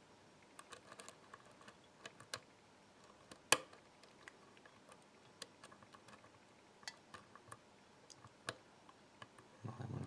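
Faint clicking of a steel sparrows hook pick against the pins and keyway of a BKS euro cylinder held under medium-to-heavy tension, while the standard pins 5, 4 and 3 are probed. The small clicks come at uneven intervals, with one sharper click about three and a half seconds in.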